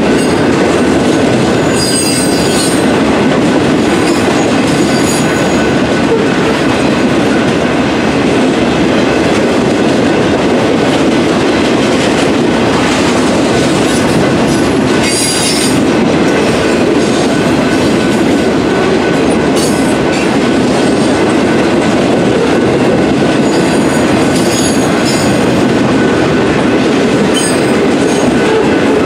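Freight train of boxcars rolling through a grade crossing: a steady rumble and clatter of steel wheels on the rails, with brief high wheel squeals several times.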